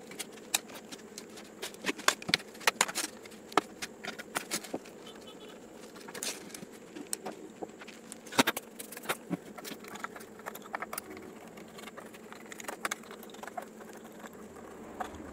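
Irregular clicks, snaps and rattles of a portable Bluetooth speaker's plastic casing being taken apart by hand: end caps and grille prised off, then a screwdriver working on the screws near the end.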